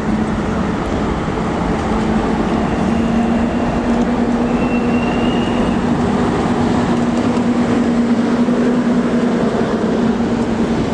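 PKP EU06 electric locomotive pulling a train slowly past at close range: a steady electric hum over the rumble of wheels on rails, with a faint high squeal briefly near the middle.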